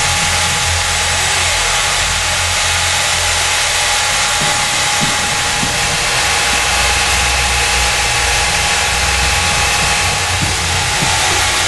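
PushCorp belt sanding machine running steadily: an even hiss from the abrasive belt travelling over its wheels, over a constant low hum and a steady whine.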